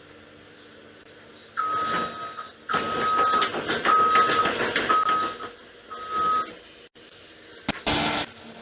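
Reversing alarm of a debris-removal vehicle beeping five times, about once a second, over a burst of engine and work noise. A sharp knock and a short burst of noise follow near the end.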